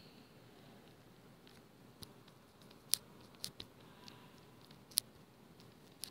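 Faint, sharp taps and ticks of a stylus on a tablet screen during handwriting: about six irregular clicks, the loudest two about three and five seconds in, over a low hiss.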